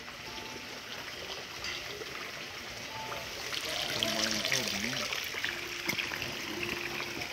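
Steady trickling of running water, with faint voices in the background around the middle.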